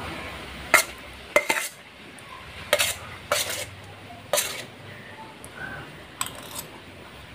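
Steel spoon clinking and scraping against a steel plate while scooping rice: about eight sharp clinks at uneven intervals.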